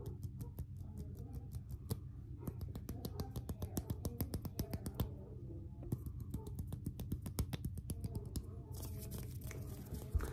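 Close-miked ASMR hand sounds: fingers and palms rubbing and flicking against each other, making runs of quick, crisp crackling clicks with short pauses between them. Near the end they turn into a swishing rustle of skin on skin.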